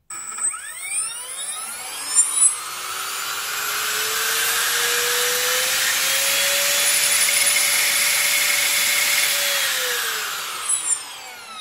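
Water-cooled brushless RC boat motor running free with no propeller on a 4S LiPo: a whine that climbs in pitch over about six seconds, holds steady, then winds down near the end. A couple of brief louder spikes come about two seconds in and shortly before it winds down.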